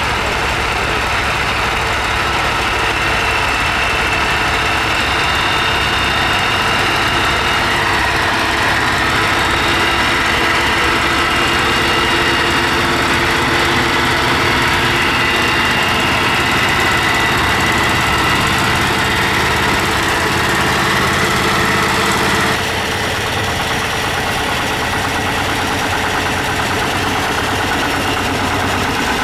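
Tractor engine running steadily, with an abrupt small drop in level and change in tone about three quarters of the way through.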